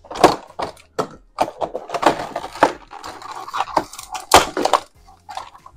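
Clear plastic packaging crinkling and crackling under the hands: a stiff blister tray and a thin plastic accessory bag being handled, with a sharp crack a little past four seconds in.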